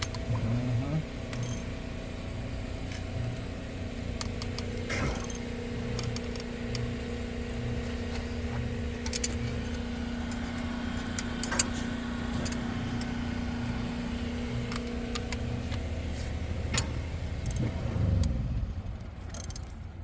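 Small engine of a dewatering pump running steadily, then shutting off near the end, with sharp metallic clinks of wrenches on the coupling bolts.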